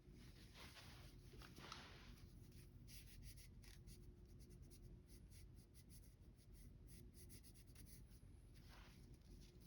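Faint scratching and rubbing of a sight-paint pen tip dabbed against a revolver's front sight post, with many small light ticks, over a low steady hum.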